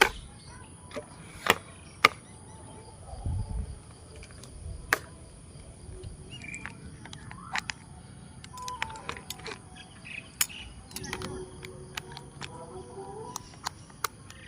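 A dozen or so sharp, irregular clicks and knocks, with low handling rumbles about three seconds in and again near eleven seconds, over faint bird chirps and a steady high whine.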